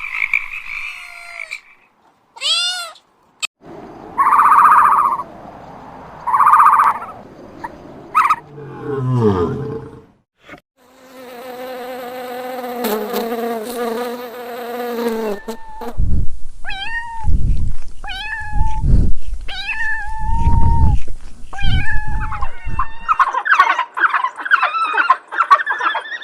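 A run of short animal-call clips spliced one after another: a frog croaking for the first couple of seconds, then a string of different animal calls and cries, changing every few seconds.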